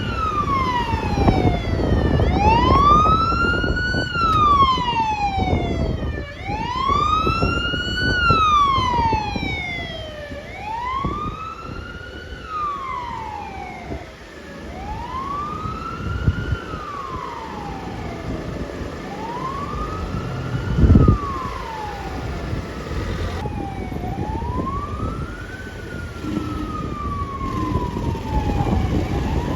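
Fire truck siren wailing, each slow rise and fall taking about four seconds, over the rumble of the truck's engine and tyres. It is loudest in the first ten seconds, then fainter, with a brief thump about twenty seconds in.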